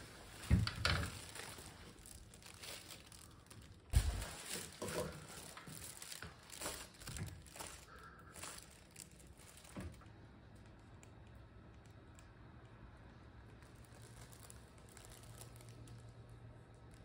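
Household handling noises: a string of clicks, knocks and rustles, with louder knocks about half a second and four seconds in, then a faint steady hum for the last several seconds.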